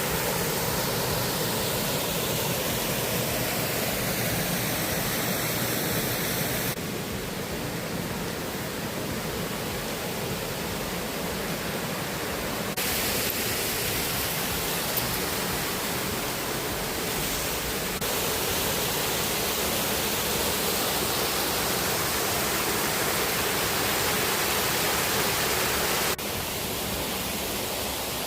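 Waterfall rushing, a steady dense roar of falling water. The sound changes abruptly several times as shots change, becoming slightly quieter or brighter from one shot to the next.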